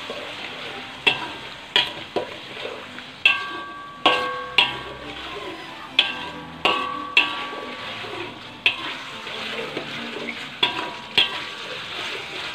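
Slotted metal spatula scraping and knocking against a metal wok while food is stir-fried, about a dozen irregular knocks over a steady sizzle. Several knocks leave a brief metallic ring.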